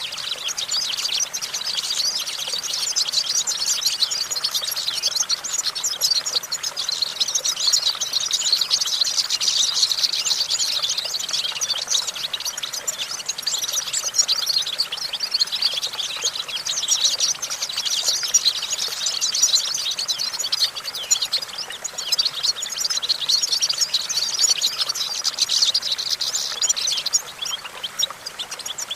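European goldfinch singing: a fast, continuous twittering song of high trills and chirps that eases off briefly near the end.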